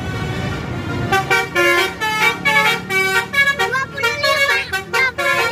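A bus's multi-tone 'telolet' musical horn playing a quick tune of short notes at several pitches, starting about a second in, over the rumble of the bus's engine.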